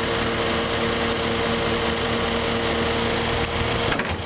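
Cat compact track loader's diesel engine running steadily, with its hydraulic BP118C pickup broom spinning: a constant mechanical drone with a steady hum. A brief clatter comes near the end.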